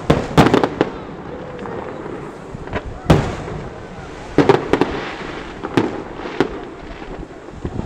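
Aerial firework shells bursting overhead: a string of sharp bangs. A quick cluster comes about half a second in, one loud bang about three seconds in, another cluster around four and a half seconds, and single bangs after that.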